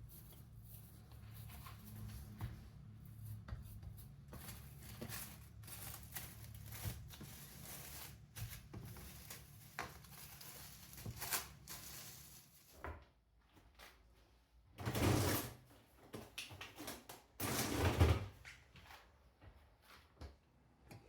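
Kitchen handling sounds from baking preparation: small clicks, taps and rustles over a low hum, then two louder, longer noisy swishes in the second half.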